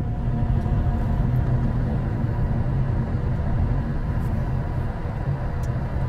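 An engine running steadily, with a strong low hum and a few steady higher tones.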